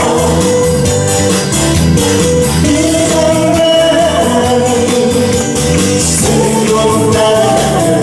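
Korean trot backing track with a steady beat playing through a PA speaker, and a man singing along into a microphone, holding long wavering notes.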